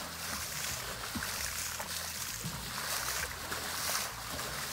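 Lake water sloshing and lapping in and around a half-sunk motorboat, a steady watery wash that swells and fades every second or so.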